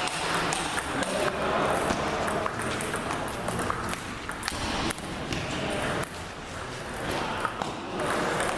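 Table tennis balls striking paddles and the table, a run of sharp clicks at uneven intervals over the hall's background noise.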